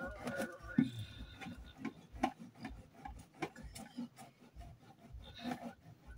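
Knife cutting through a plastic jerry can: irregular scraping strokes of the blade through the plastic, about two a second.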